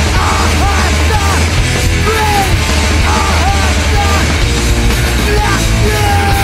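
Loud, distorted punk-style rock music: a dense wall of noisy guitar over a heavy, steady low end, with short arcing high notes about once a second.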